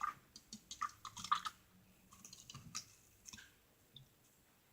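Homemade borax-and-glue slime being kneaded and mixed by hand: a run of irregular, wet, sticky clicks, dense in the first second and a half and then thinning out to a few faint ones.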